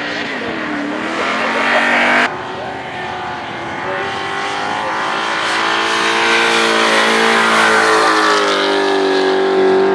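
Two cars powerskidding one after the other, both engines held at high revs while the rear tyres spin. First comes a turbo V8 Holden Commodore ute, which cuts off suddenly about two seconds in. Then a second car takes over, its engine note climbing and then holding steady and loud near the end.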